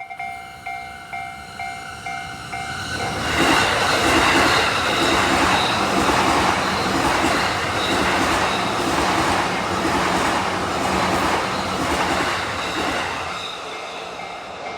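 A Japanese level-crossing bell rings in a steady repeating two-tone ding. About three seconds in, a train passes the crossing, and the loud rhythmic clatter of its wheels over the rail joints drowns the bell for about ten seconds. The clatter fades near the end and the bell is heard ringing again.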